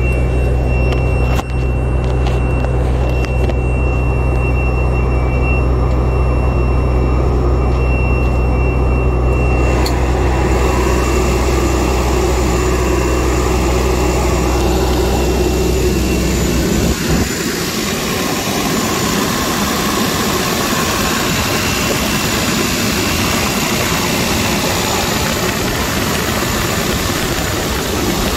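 Cummins diesel engine of a fire pumper truck idling steadily with a deep hum. About ten seconds in the sound turns brighter and hissier. After about seventeen seconds the low hum drops away, leaving a steady rushing noise.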